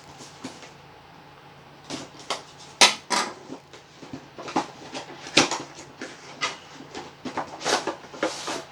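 Action-figure packaging being opened by hand: irregular crinkles, snaps and scrapes of a cardboard box and plastic tray, with the sharpest snaps about 3 and 5.5 seconds in.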